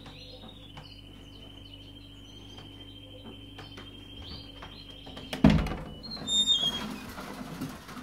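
Caged canaries chirping, with a loud thump about five seconds in, followed by a few short high chirps.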